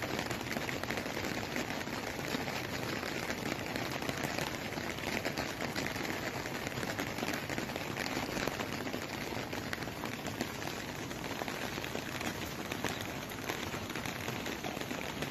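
Heavy rain falling steadily: an even hiss with fine patter.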